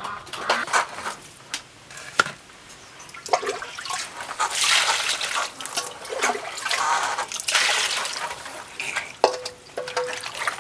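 A few sharp knocks of a cleaver on a wooden chopping board near the start, then water sloshing and splashing as a whole fish is rubbed and washed by hand in a plastic basin.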